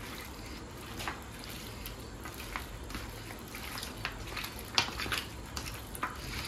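Raw goat meat being kneaded by hand with ghee and turmeric in a steel bowl: soft wet squelches with short clicks, scattered irregularly.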